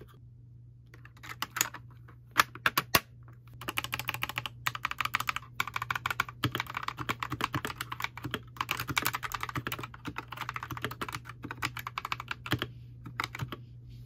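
Fast typing on a mechanical keyboard fitted with Akko V3 Cream Yellow switches, each keystroke a deep "thocc". A few single presses come first, then a dense run of quick keystrokes with two short pauses, thinning to scattered presses near the end.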